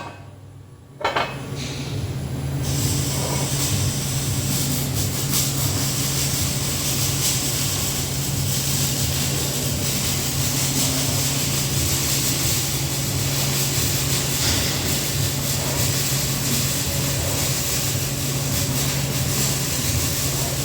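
TIG welding arc buzzing steadily over a low hum from the welding machine, as 304 stainless steel is welded to carbon steel pipe with 309 filler wire. The arc starts with a click about a second in, after a brief quiet gap.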